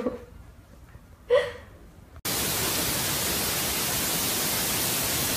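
A short, pitched cry about a second in, then an even, loud hiss that starts abruptly about two seconds in and holds steady.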